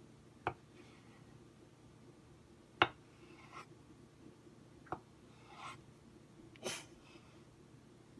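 Kitchen knife cutting a rope of potato gnocchi dough on a wooden cutting board. The blade taps sharply on the board three times, about two seconds apart, with a few softer swishes in between.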